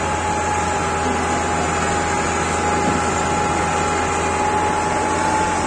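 Massey Ferguson 375 tractor's diesel engine running steadily under heavy load while hauling a heavily loaded sugarcane trolley, with a steady high whine through it.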